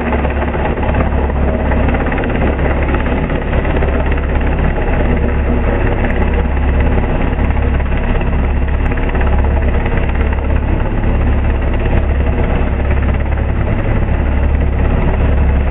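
Coast Guard MH-60 Jayhawk helicopter hovering, its rotors and turbine engines running as a steady, loud noise with a strong low hum.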